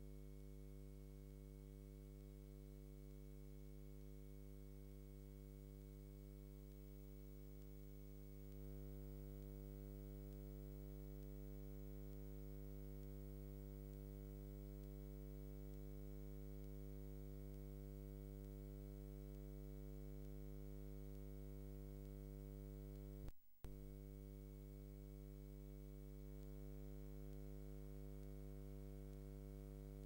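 Faint, steady low electrical hum with a buzz of overtones, of the kind mains hum leaves on a tape transfer. It gets slightly louder about a third of the way in and cuts out for a split second near the two-thirds mark. No machinery is heard.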